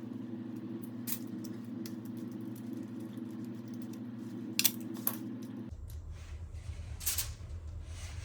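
A few sharp metallic clinks of tools or parts being handled during a motorcycle oil change, the loudest about four and a half seconds in, over a steady low hum that drops lower about two thirds of the way through.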